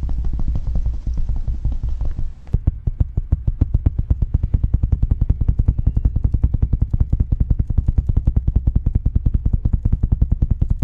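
A rapid, even train of heavy thuds, about eight to ten a second, following a denser rumbling rattle in the first couple of seconds.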